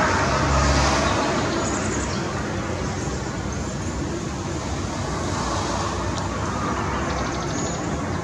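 Steady road traffic noise, with a woodpecker's brief rapid drumming near the end: a fast, even burst of taps lasting under a second.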